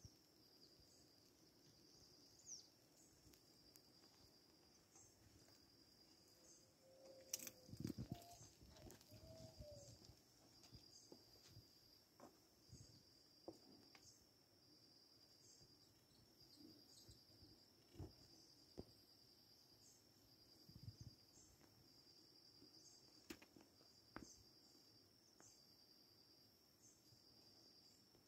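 Insects chirping in a faint, steady, pulsing high trill, with a few scattered knocks and taps; the loudest knocks come in a cluster about a quarter of the way in.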